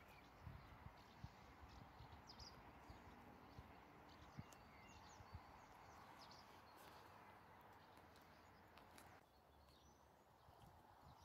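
Near silence: faint outdoor background hiss with a few distant bird chirps; the hiss drops abruptly about nine seconds in.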